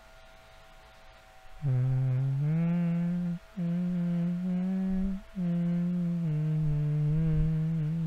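A man humming a slow, low melody in long held notes. It starts about a second and a half in and breaks briefly twice for breath.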